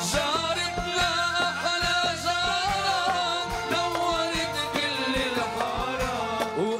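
Live band playing an upbeat instrumental passage of Arabic music with a steady drum beat.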